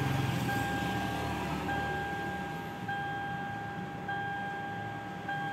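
A steady electronic warning tone that restarts about every 1.2 seconds, over a low background hum.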